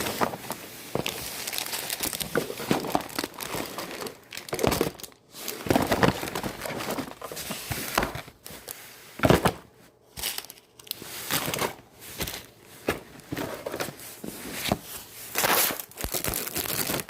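Homemade slime being squished and stretched by hand, giving irregular crinkling and crackling sounds in uneven bursts.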